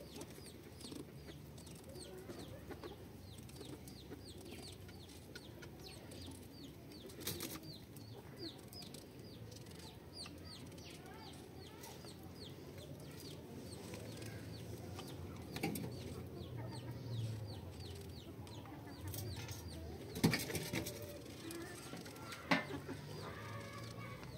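Birds chirping over and over, short high falling chirps about two a second, with a few sharp clicks of a knife cutting a cucumber over a metal pan, the loudest about twenty seconds in.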